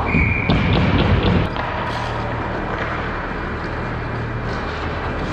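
Indoor ice rink ambience: a steady low hum under a noise bed. It is louder and rougher for the first second and a half, with a short high tone right at the start.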